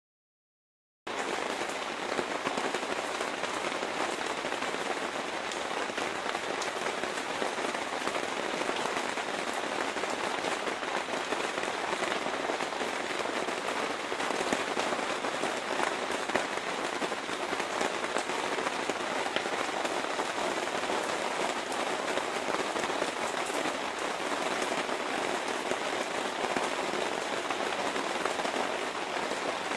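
Steady rain falling on a lake and a wooden deck, an even hiss of drops, starting suddenly about a second in.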